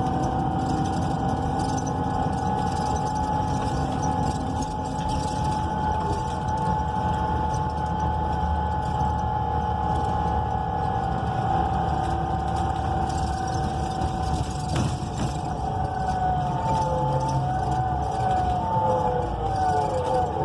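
Cabin sound of a NABI 42 BRT city bus under way: its Cummins Westport L9N natural-gas engine and Allison B400R automatic transmission running with a low rumble and a steady drivetrain whine. Near the end the whine wavers and drops in pitch.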